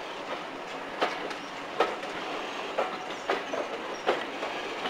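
Railway carriage wheels clicking over rail joints and pointwork while the train is moving: about five sharp clicks at uneven intervals over a steady rolling noise.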